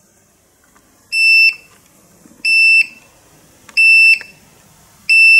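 Handheld carbon dioxide detector's alarm beeping: four short, high-pitched beeps about 1.3 seconds apart. It is warning of too much carbon dioxide, with the reading over 2000 ppm.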